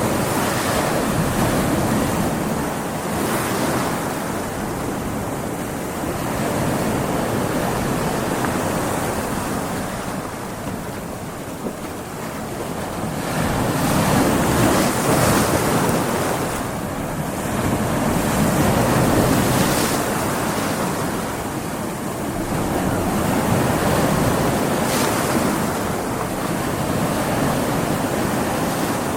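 Stormy sea: waves breaking in rough surf, the rushing noise swelling and easing every few seconds, with wind mixed in.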